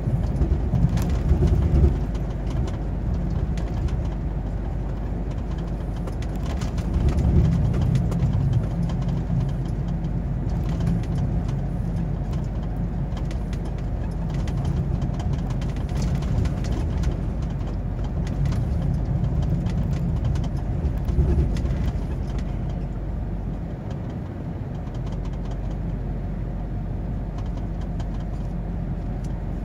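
Truck's diesel engine and road noise heard from inside the cab while driving: a steady low rumble that swells a few times as the engine pulls.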